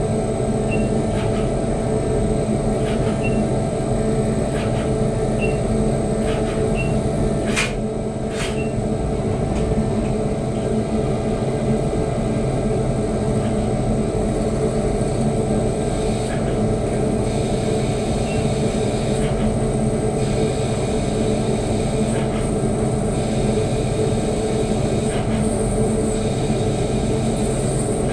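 DURE Vertical 5060 CNC milling machine running with a steady mechanical drone and a constant whine over it. Two sharp clicks come close together about a third of the way in.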